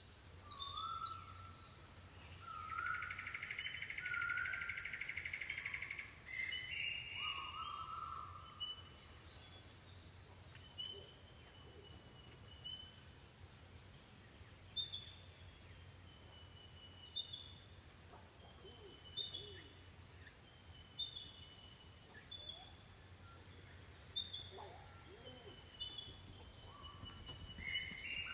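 Wild birds calling. Several whistled notes overlap in the first seven seconds, then a short whistled call repeats every second or two, over a steady low hum.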